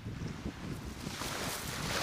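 Wind buffeting the microphone on an open beach, with a hiss of water at the shoreline that swells from about a second in.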